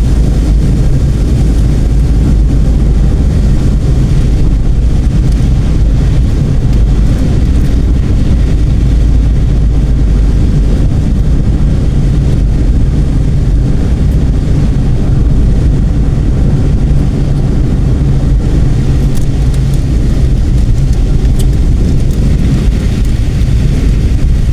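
A vehicle moving fast along the road: a loud, steady low rumble of engine, tyre and wind noise.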